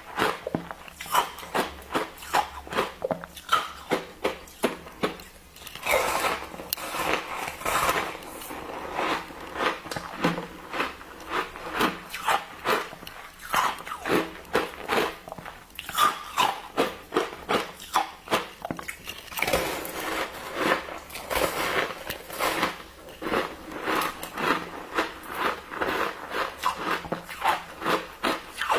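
Close-miked crunching of pressed, snow-like ice blocks soaked in passion fruit juice as they are bitten and chewed, in quick crunches about two to three a second.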